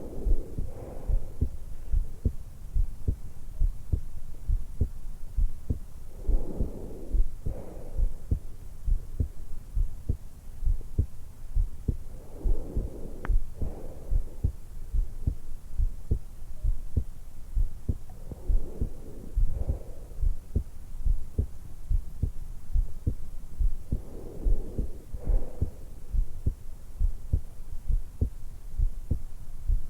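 A woman's heartbeat picked up through a stethoscope microphone pressed to the hollow of the throat, beating steadily as a train of low thumps. Her breathing comes in and out about every six seconds, five times over.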